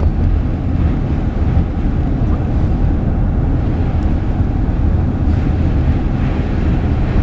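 Steady low rumble of a car on the move, road and wind noise heard from inside the vehicle.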